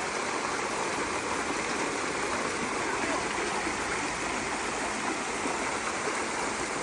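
Steady rush of water flowing at a dam, an even, continuous noise.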